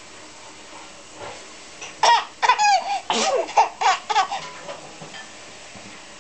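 Bursts of high-pitched laughter that begin about two seconds in and go on for a couple of seconds.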